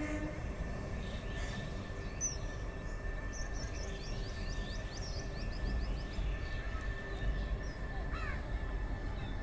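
Birds calling over a steady low rumble from the WAG-12B electric locomotive and its container wagons rolling past. There is a quick run of a dozen or so short chirps a few seconds in and a couple of falling calls near the end.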